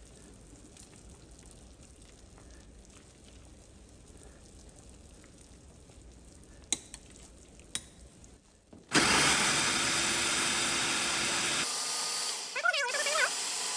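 Quiet room tone with two light clicks, then about nine seconds in an electric food processor starts and runs loudly and steadily, chopping tomatillos, jalapeños, garlic and cilantro with stock into a salsa verde.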